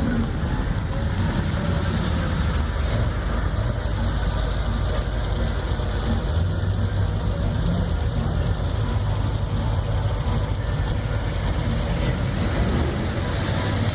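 Classic car engines idling in a slow-moving line, a steady low rumble with no revving.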